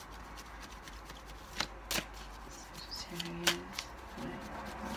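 A deck of tarot cards shuffled by hand: soft rustling with scattered sharp card snaps. A person hums briefly about three seconds in.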